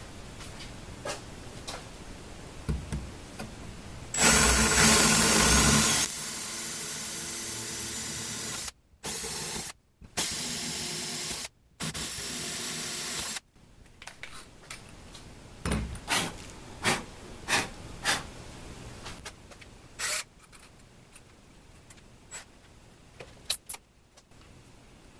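Handheld cordless drill boring screw holes through an MDF plate. It gives a loud cutting burst for about two seconds, then the motor runs in several stretches with short stops between. Scattered knocks and clicks follow as the drill and plate are handled.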